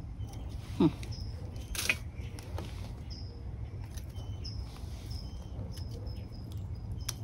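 Hands picking flower stalks from among succulents: a sharp snap or click about two seconds in and another near the end, over a low steady rumble. A brief low sound that falls in pitch about a second in is the loudest moment. Short high chirps repeat about once a second throughout.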